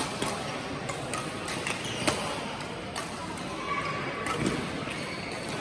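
Badminton hall ambience: scattered sharp clicks of rackets striking shuttlecocks, over a low murmur of voices, all echoing in the large hall. The sharpest hit comes about two seconds in.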